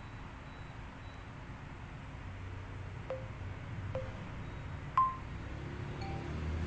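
Four light clinks, each with a brief ringing tone, about a second apart, the third the loudest, over a low steady rumble.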